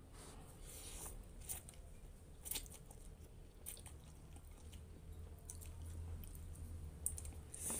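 A person chewing a mouthful of instant noodles close to the microphone: faint, irregular wet mouth clicks and smacks.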